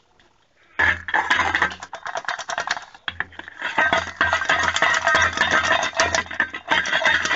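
Loud, dense crackling and rustling of jaggery-coated puffed rice being squeezed and rolled into a laddu in the hands close to the microphone, starting about a second in, with a low hum of handling noise underneath.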